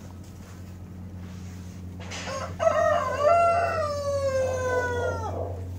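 A rooster crowing once: a single long call of about three seconds that slides down in pitch toward the end, over a steady low hum.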